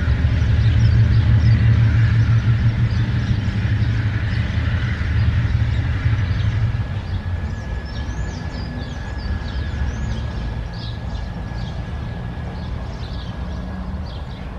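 GE BB36-7 diesel-electric locomotive running under load as it pulls a loaded limestone train away, its low engine drone fading after about seven seconds as it moves off. A thin steady squeal runs through the second half, with short high chirps over it.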